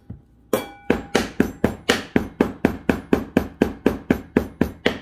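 Large chef's knife chopping squirrel meat on a round wooden cutting board: a fast, even run of sharp chops, about four a second, starting about half a second in.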